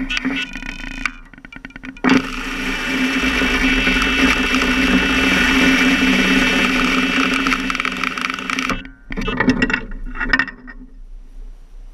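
Electronic carp bite alarm sounding a full run: a continuous tone starts abruptly about two seconds in and cuts off suddenly near nine seconds, when the rod is lifted off the alarm. Short broken sounds come before and after it.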